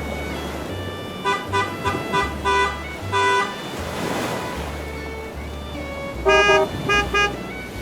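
Cartoon vehicle horn honking in short toots, a run of about five a little over a second in and three more near the end, over background music with a steady repeating bass line. A soft whoosh comes between the two runs.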